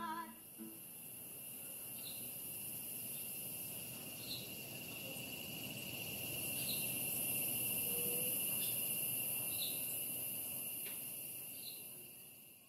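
Insects buzzing steadily in a continuous high-pitched drone, with a second steady tone beneath it and short chirps every second or two. The sound fades out near the end.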